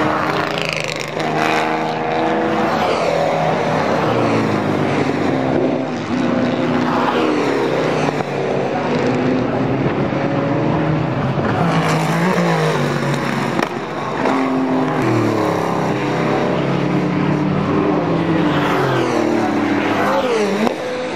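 Several racing cars' engines going past one after another at speed, each one's pitch climbing and then falling away as it passes, with overlapping engines often heard at once.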